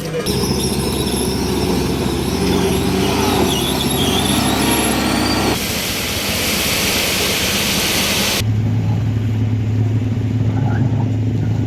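Heavy truck engines and road vehicle noise in a series of abruptly cut clips, with high wavering squeals in the first part and a steady low engine drone in the last.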